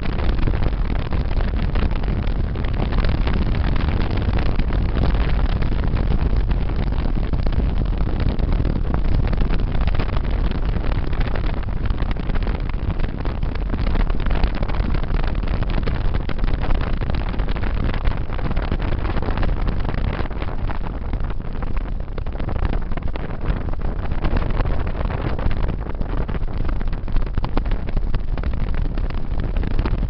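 Steady road noise of a moving car heard from inside it: a deep rumble with a hiss over it, unbroken throughout.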